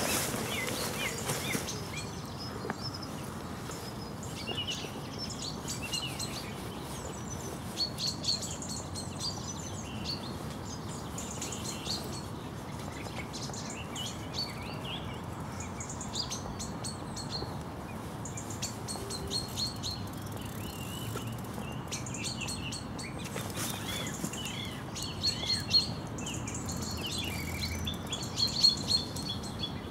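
Small songbirds chirping and singing on and off, with short calls and trills, over a steady background rush.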